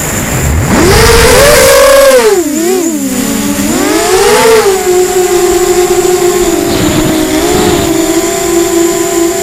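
ZMR250 quadcopter's brushless motors and propellers whining, the pitch swooping up and down sharply with throttle in the first few seconds, then holding nearly steady. A low rush of wind accompanies the first couple of seconds.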